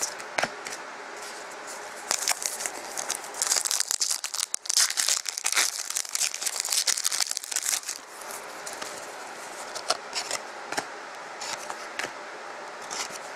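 The foil wrapper of a Panini Contenders hockey card pack being torn open and crinkled by hand: a dense crackling that is loudest from about two to eight seconds in.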